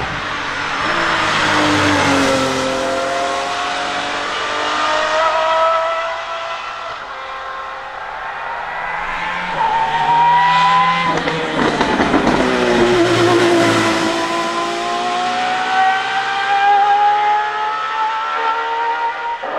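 Hypercar engine at high revs accelerating hard on a wet hillclimb. Its note climbs through the gears and drops in pitch as the car passes, twice, over the hiss of tyre spray.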